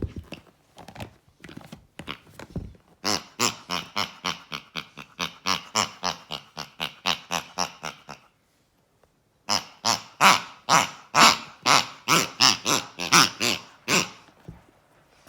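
Pigs squealing in quick, regular runs of about three squeals a second: two long runs with a pause of about a second between them.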